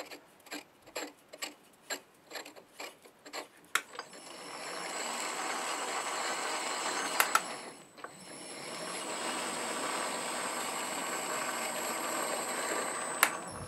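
A run of light, evenly spaced clicks, about two to three a second, as a threaded steel tube is screwed by hand into a freshly tapped M16x1 thread. Then the MN-80 lathe's spindle and chuck spin up and run with a steady whir and a high whine, drop out briefly about halfway, run again, and end with a sharp click.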